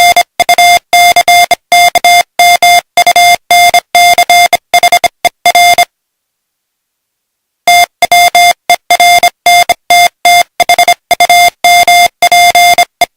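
Morse code sent as a single steady mid-pitched beep, keyed on and off in a quick run of short dots and longer dashes. It stops for nearly two seconds midway, then resumes with a second run.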